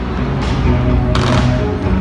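Music playing loudly while fireworks go off, with low thuds and a hissing crackle of bursting shells about half a second and again about a second in.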